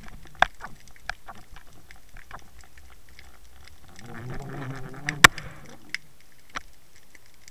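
Underwater sound from a submerged camera: scattered small clicks and pops in the water, a low hum for about a second a little past halfway, and one sharp click soon after.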